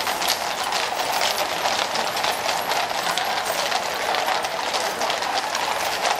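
Hooves of a mounted troop of Household Cavalry horses clip-clopping on a paved road, many horses at once in a dense, continuous clatter.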